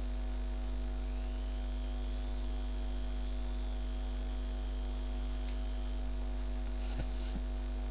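Steady electrical mains hum from the recording chain, with several steady tones over it and a faint, rapid, even ticking high up.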